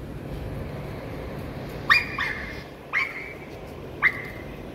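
Puppy yipping: four short, high yips, the first two close together and the others about a second apart.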